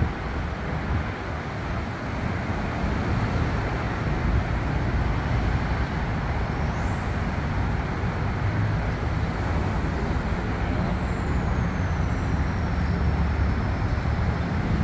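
Train running past on the curve: a steady rumble of wheels on the rails. A faint high whine rises and then falls about halfway through.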